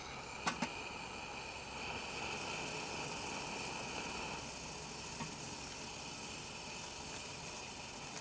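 Small brass liquid-fuel camp stove burning with a steady hiss under a kettle. About half a second in, the metal kettle is set down on the stove's pot supports with two quick clanks.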